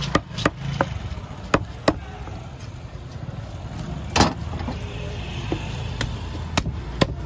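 Heavy fish-cutting knife striking a wooden log chopping block in sharp, irregular knocks, the loudest a little past halfway, over a steady low rumble.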